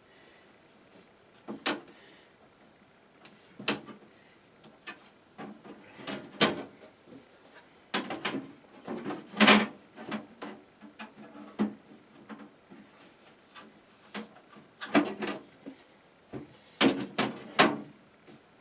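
Irregular clicks, knocks and scrapes of computer case parts being handled, with the loudest knocks about halfway through and a cluster near the end.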